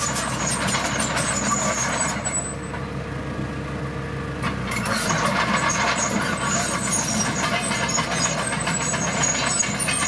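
Komatsu D41PX crawler bulldozer's diesel engine running under load as it pushes a pile of dirt with its blade, its steel tracks clanking, with high squeaks over the top. The clatter eases for about two seconds partway through, then picks up again.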